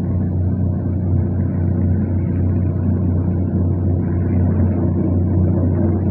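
Passenger train running along the track, heard from on board: a steady low rumble with a constant deep drone.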